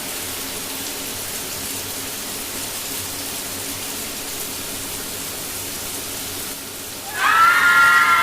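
A steady rain-like hiss over a faint low hum. About seven seconds in, louder music with sustained high chords comes in.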